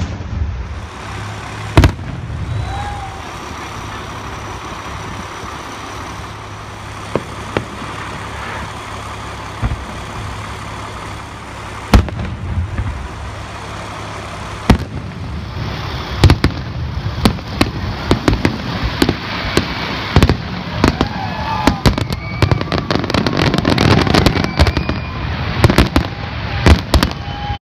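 Aerial fireworks shells bursting: a few single loud bangs several seconds apart, then, past the middle, a rapid barrage of bangs and crackles, the show's finale.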